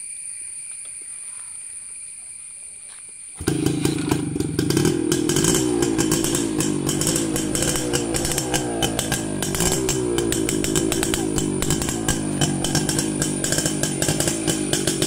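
Suzuki Samurai's two-stroke single-cylinder engine starting abruptly about three seconds in, then running with a fast, even beat, its speed rising and falling a little.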